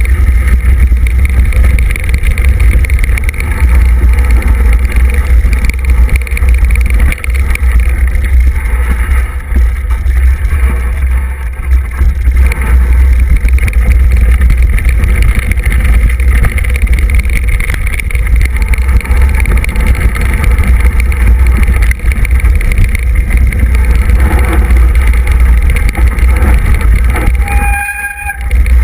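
Heavy wind buffeting on the microphone of a camera mounted on a mountain bike riding fast downhill, over the rumble and rattle of the bike on a dirt trail. A short beep-like tone sounds near the end.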